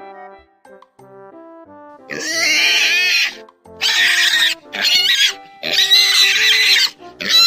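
A pig squealing loudly, about five long shrill squeals one after another starting about two seconds in, over light background music.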